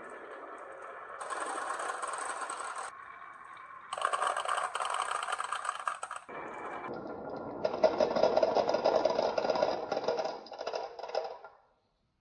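Marbles rolling and rattling down a marble run track, the sound changing abruptly several times as they pass onto different track sections, then dying away near the end.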